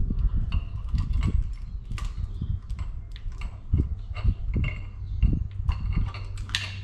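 A razor knife cuts and pries at the rubber boot on a CV axle joint clamped in a vise, giving irregular scrapes, clicks and knocks of handling.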